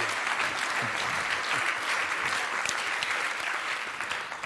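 Theatre audience applauding: a steady, dense clapping that thins out near the end.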